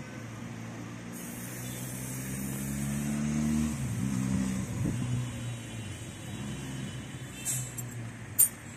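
A motor vehicle's engine running close by, swelling louder over the first few seconds and then easing off, with one sharp click near the end.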